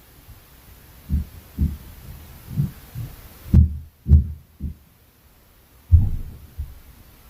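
Heavy footsteps and dull thuds from the flat upstairs, coming through the ceiling as irregular low thumps: upstairs floor-impact noise. The thumps come in uneven clusters, with one of the loudest about halfway through and a short pause before a last run of thuds near the end.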